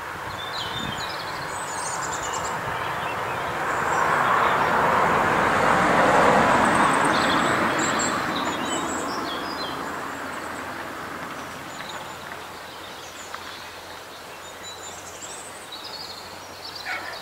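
Wild birds chirping and calling throughout, over a broad rushing sound that swells up to its loudest about six seconds in and then slowly fades.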